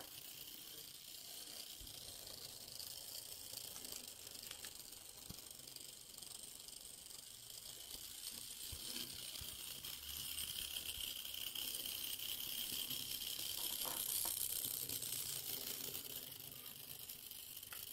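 Small 009-scale single-cylinder live steam locomotive pulling three flat cars around a table-top track: a faint steady hiss with light rattling from the wheels on the rails, getting louder partway through as the train comes round toward the front.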